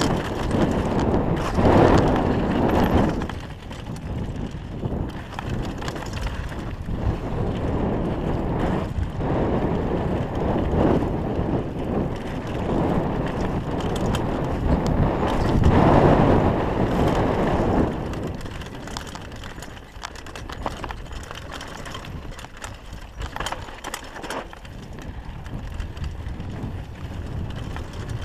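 Downhill mountain bike running fast over a dry dirt and gravel trail: continuous tyre and rushing noise with frequent rattles and knocks from the bike over bumps. It swells louder about two seconds in and again around sixteen seconds, then eases off.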